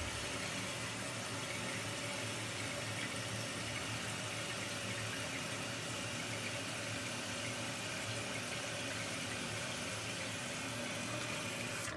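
Toilet tank refilling through its fill valve: a steady hiss of running water that cuts off suddenly near the end.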